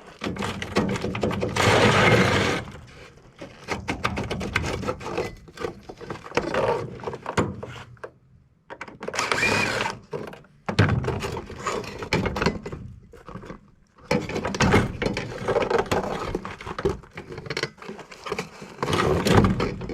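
Metal and plastic knocking, scraping and cracking in irregular bursts as a small air-conditioner coil is pried and pulled loose from an appliance, with a short squeal about halfway through.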